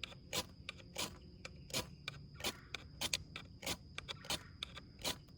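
Ferro rod of a Mora Companion Spark knife struck repeatedly with the knife's spine: about a dozen short, sharp scrapes at an uneven pace, throwing sparks to light a fire starter.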